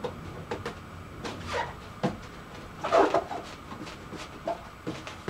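Cardboard and duct tape being handled: hands press small strips of duct tape onto a cardboard box, with scattered light knocks and taps. There is a louder rustle about three seconds in.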